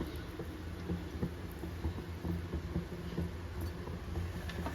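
Fried onions being sprinkled over cooked rice: faint scattered light pattering and rustling over a steady low hum.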